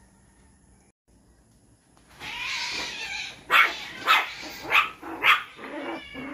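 A dog barking: a rough, noisy sound about two seconds in, then sharp barks repeated about twice a second.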